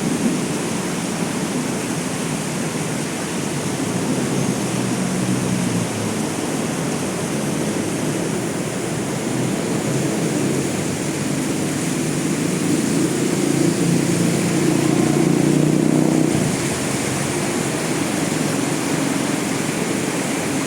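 Heavy rain pouring down steadily as an even rushing noise, swelling a little louder for a few seconds about two-thirds of the way through.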